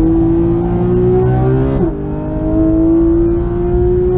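Porsche 911 GT3 RS's naturally aspirated 4.0-litre flat-six under hard acceleration, heard from inside the cabin: the engine note climbs, drops sharply at a quick upshift about two seconds in, then climbs again.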